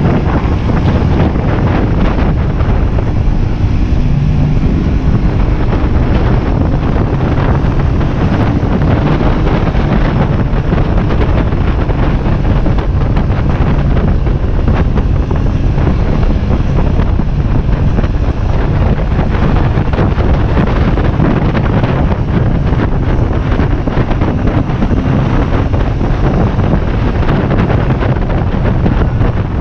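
Heavy wind noise on the microphone of a motorcycle ridden at road speed, with the motorcycle's engine running steadily underneath.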